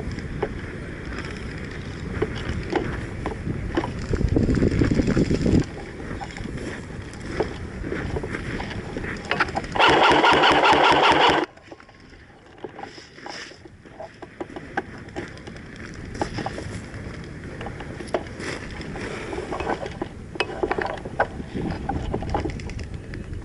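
Airsoft gun firing one rapid full-auto burst of about a second and a half, about ten seconds in, amid wind buffeting the microphone and scattered rustles and clicks.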